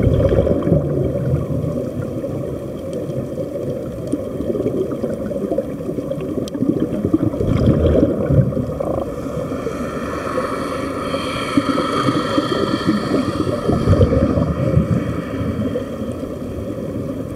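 Air bubbling out of surface-supplied diving helmets, heard underwater: a continuous low gurgling rush that swells now and then. Midway through, a faint pitched hum with several overtones joins for a few seconds.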